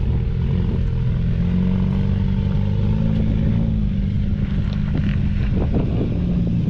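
Vehicle engine running steadily at low revs, its pitch rising and falling slightly, with a few faint knocks in the last couple of seconds.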